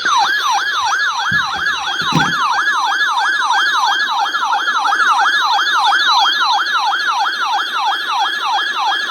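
A RadioShack weather radio's built-in alert siren sounding for a weather warning: a loud electronic warble sweeping rapidly up and down in pitch, about three sweeps a second, starting abruptly.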